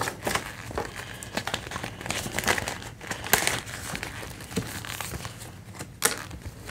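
Crinkling and rustling of laminated vellum placeholder notes and a clear plastic binder pocket as they are handled and slid into the pocket, in irregular crinkles throughout.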